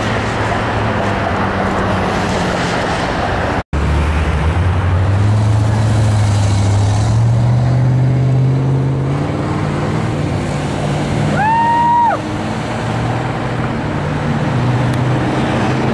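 Road traffic at an intersection: a vehicle's engine pulling away with a slowly rising note, then a single short horn honk about twelve seconds in.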